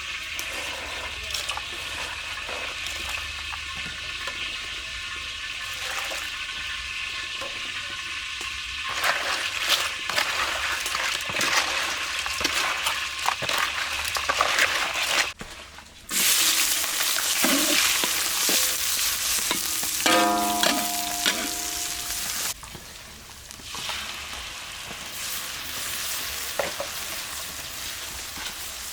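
Food sizzling and frying in a hot pan while being stirred. After a brief break about halfway through, the sizzle is louder for several seconds, then settles back.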